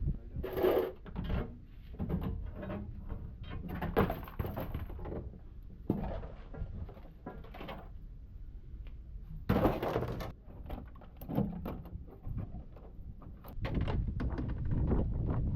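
Irregular knocks and thuds over a low rumble, loudest about half a second in and again around ten seconds in.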